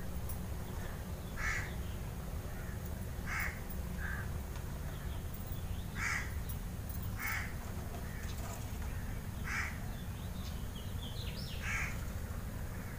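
Crow cawing, single short caws a second or two apart, about seven in all, over a steady low rumble.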